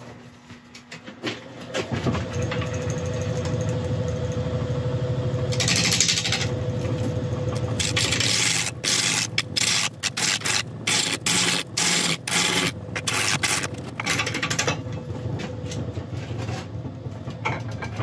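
Wood lathe motor starting up and running steadily at around 600 rpm with a knobbly monkey puzzle log spinning between centres. A bowl gouge then cuts the protruding knots off, giving a run of rapid, irregular hits and scraping from about six seconds in that eases near the end.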